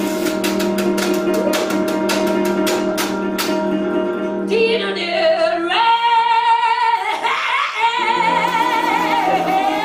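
Live acoustic blues: a washboard ticks about three times a second over a sustained guitar chord. About halfway in the washboard stops and a woman sings long held notes with wide vibrato over the guitar.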